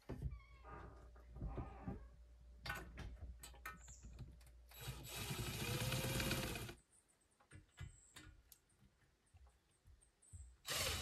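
Light clicks and knocks as a steel chimney wall bracket is handled and fitted against the cabin wall, then a cordless drill runs for about two seconds midway, its pitch rising and then falling.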